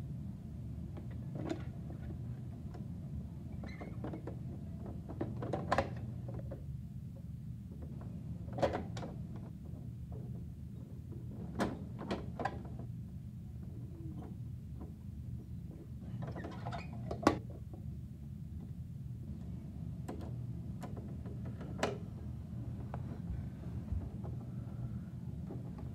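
Bruder plastic toy garbage truck and toy bins being handled: scattered plastic clicks and knocks as a bin is fitted to the truck's rear lifter, the loudest a single sharp knock about two-thirds of the way through. A steady low hum runs underneath.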